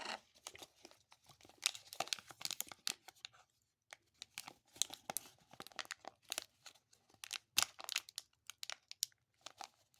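Snack packaging holding white chocolate-covered grasshoppers being torn open and crinkled in the hands: a run of irregular sharp crackles and rustles with a couple of brief pauses.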